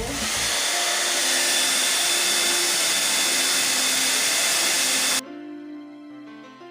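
Remington hair dryer blowing steadily with a thin high whine, getting louder as it starts, as if switched to a stronger fan setting. It cuts off abruptly about five seconds in, leaving background music.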